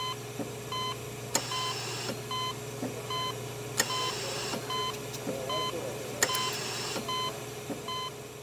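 Electronic beeping in the closing soundtrack: short beeps about twice a second over a steady low hum, with a sharp click and a brief hiss about every two and a half seconds. It starts to fade out near the end.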